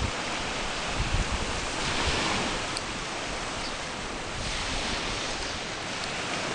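Small waves washing onto a shoreline, swelling about two seconds in and again around four and a half seconds, with wind buffeting the microphone in low gusts.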